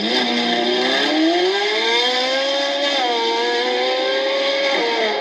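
A car engine revving hard under acceleration, its pitch climbing over the first two seconds or so, dropping briefly about three seconds in as if on a gear change, then holding high before falling away near the end.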